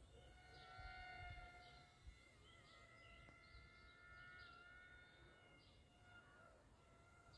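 Near silence: a faint low rumble with faint, wavering high tones, each held for a second or more.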